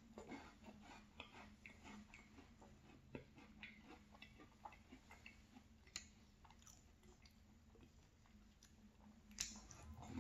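Faint close-up chewing of a yogurt-dipped cookie, with soft wet mouth clicks and light crackles at an irregular pace, and a sharper click about six seconds in.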